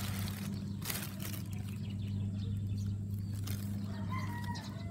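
A steady low hum, with faint crinkles and rustles of a plastic bag being handled. A short wavering tone comes in near the end.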